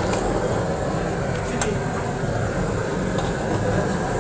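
Steady roar of a hose-fed gas torch flame, with a couple of faint clicks about a second and a half in.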